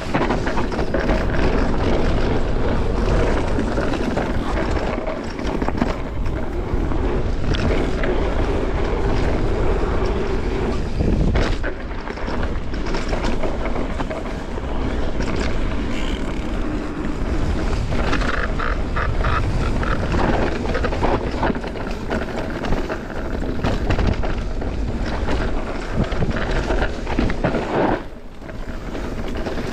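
Mountain bike riding down a rough trail: tyres rolling over dirt and rock with frequent knocks and rattles from the bike, and wind buffeting the microphone.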